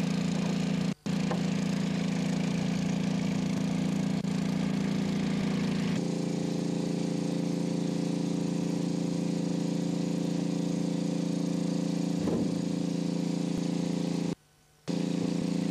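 Steady engine drone, like machinery running on a construction site, with brief dropouts about a second in and again near the end.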